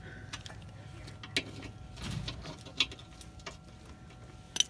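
Ratchet wrench and socket turning a bolt on a radiator support bracket: scattered short metallic clicks at irregular spacing.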